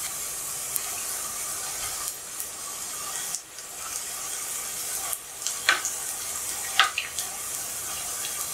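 Garlic potato nuggets shallow-frying in hot refined oil in a frying pan, giving a steady sizzle. A slotted metal spoon turning them gives a few light taps and scrapes against the pan in the second half.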